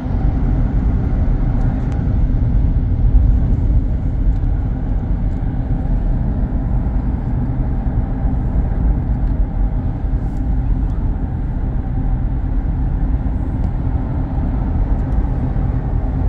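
Steady low rumble of tyre and engine noise inside a car's cabin as it drives along a highway.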